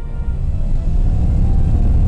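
Light aircraft's engine and airflow heard inside the cockpit as a loud, steady low rumble that swells over the first second, while background music fades out at the start.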